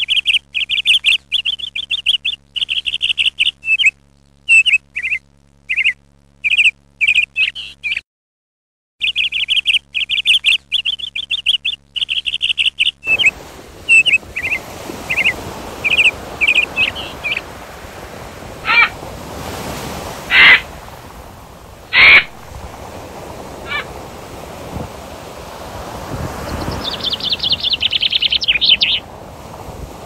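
A lovebird chirping in quick runs of high, sharp chirps, with a one-second break. About thirteen seconds in, the sound changes to the steady wash of surf on a beach, with three loud bird calls about two seconds apart and a run of high chirps near the end.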